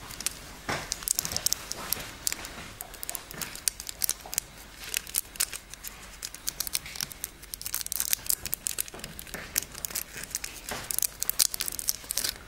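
Thin nail-art transfer foil crinkling as it is handled and pressed onto a gel-coated fingernail with the fingertip, a rapid, irregular run of small crackles.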